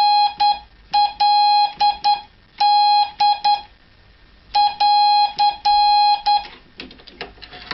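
Morse code sent as a steady beep tone, keyed on and off in long dashes and short dots, in several groups with short pauses between. The tone stops about six and a half seconds in, and a few light clicks and knocks follow.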